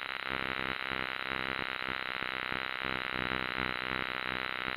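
A steady chorus of trilling frogs, heard as one continuous pulsing buzz.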